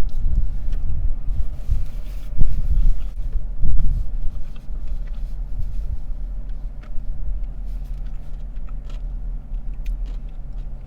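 Low, steady rumble of a car idling, heard from inside the cabin, with heavier uneven swells in the first few seconds.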